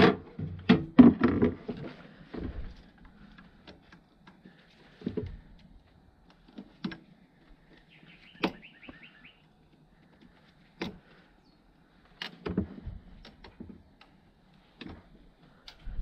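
Metal and plastic parts of a washing machine being worked apart by hand: a cluster of loud knocks in the first second or so, then scattered clicks and knocks, with a short quick rattle about eight seconds in, as pliers work at the drum motor and its wiring.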